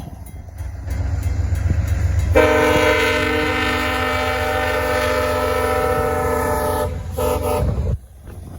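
VIA Rail P42DC diesel locomotive sounding its air horn in one long blast of several tones together, briefly broken near the end and then cut off sharply, over the low rumble of the train.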